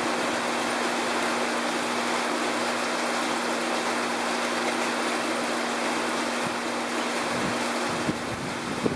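Steady hiss of rain falling on open water and land. A little before the end, uneven gusts of wind buffet the microphone.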